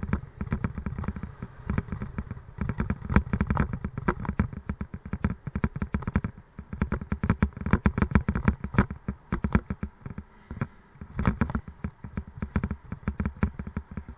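Raleigh Mustang Elite bicycle rattling and clattering fast and unevenly as it rides over rough tarmac, with a heavy low rumble underneath. The rattle eases briefly about six and again about ten seconds in.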